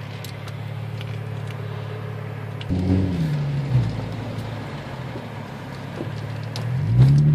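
Infiniti G35x's 3.5-litre V6 running as the car drives, with a steady hum. About three seconds in the engine note jumps up and then falls away; near the end it rises again as the car accelerates.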